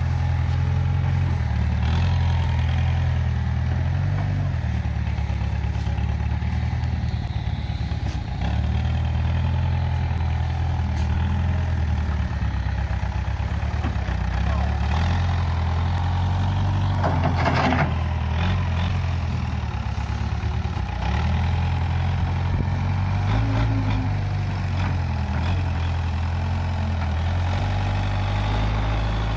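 Case 580G backhoe loader's diesel engine running steadily, its note dropping and rising a few times. A short burst of noise comes about two-thirds of the way in.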